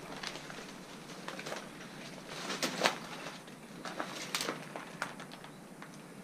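A few irregular short clicks and knocks over a faint hiss, loudest as a pair about two and a half to three seconds in, with a few more near four and five seconds.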